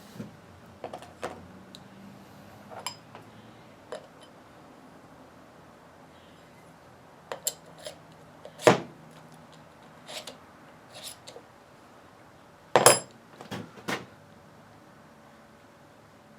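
Metal parts of a Warn VR8000 winch being handled and set down during disassembly: scattered clinks and knocks with a brief metallic ring, the two loudest about nine and thirteen seconds in.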